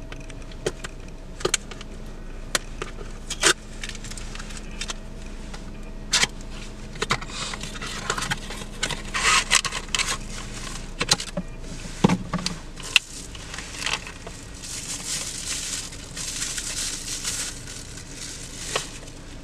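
Packaging rustling and crinkling as a camera lens is unwrapped from its wrap and box, with scattered sharp clicks and taps from handling the box and lens. The crinkling is heaviest about halfway through and again near the end.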